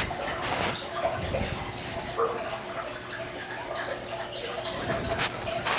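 Rustling and light taps from handling a seed packet and a plastic seed-starting tray while sowing pansy seeds, with scattered small clicks.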